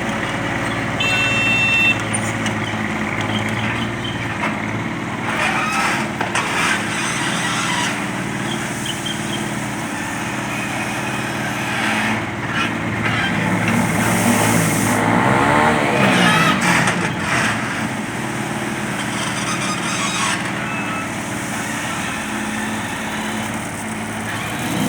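Hitachi EX30-1 mini excavator running with its engine going steadily, with scattered knocks and clanks from the machine. It gets louder for a few seconds about two-thirds of the way through, then settles back.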